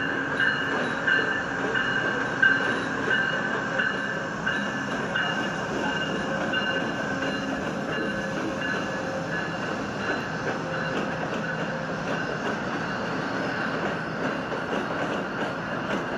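Passenger train running at the station, with a ringing tone that pulses about twice a second and fades away about halfway through.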